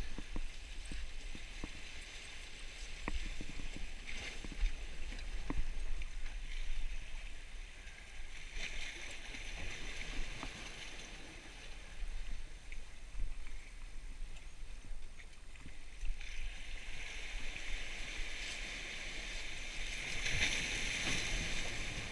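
Sea surf washing and hissing against jetty rocks, swelling louder near the end, with a few light clicks and knocks.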